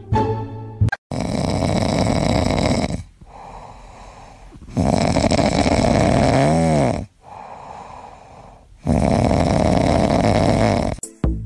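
Loud snoring: three long snores, each about two seconds, roughly four seconds apart, with quieter breaths between them.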